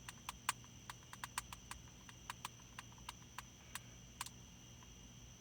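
Light, irregular clicking of typing on a phone, about four clicks a second, that stops about four seconds in.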